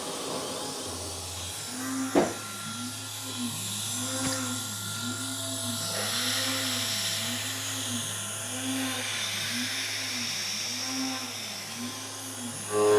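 A CNC router's high-speed ATC spindle running on its VFD, a steady whirring hiss with a low hum that pulses slowly. A sharp click comes about two seconds in, and the sound grows louder near the end.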